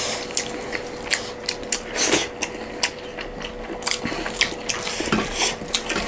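Close-up eating sounds: wet chewing and smacking of rice and curry, with fingers mixing and scraping the food on metal plates, giving many sharp clicks and short squelches.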